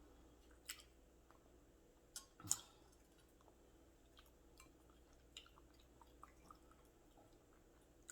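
Faint chewing with scattered small mouth clicks, and one louder short knock about two and a half seconds in.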